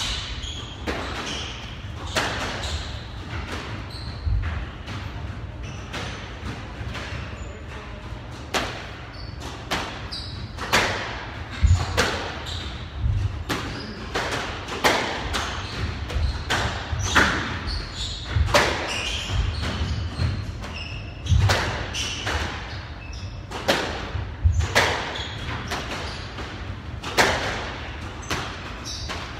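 Squash rally: the ball striking rackets and slapping off the court walls in a quick, irregular series of sharp hits, about one a second.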